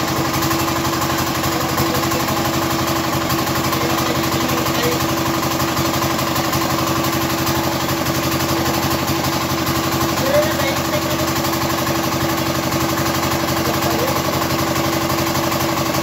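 Platinum 7.5 hp single-cylinder diesel engine running steadily at an even speed, with a fast, regular diesel clatter.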